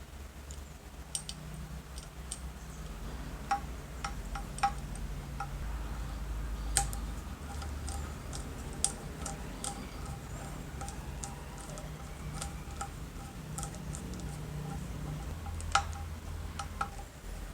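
Small metal parts and hand tools clicking and clinking lightly, irregular sharp ticks, some with a short ring, over a steady low hum.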